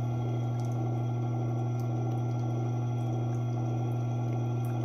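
Tormek T8 water-cooled sharpening machine running with its wheel spinning freely, a steady low motor hum.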